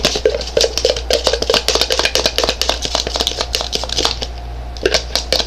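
Spoon stirring slime in a cup: a fast, irregular run of clicks and taps of the spoon against the cup, easing off about four seconds in and then starting up again. A steady low hum lies underneath.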